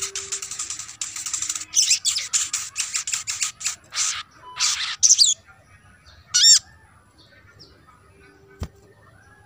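Olive-backed sunbird singing: a rapid run of high chirps lasting about five seconds, then a single short call a second later. A short knock near the end.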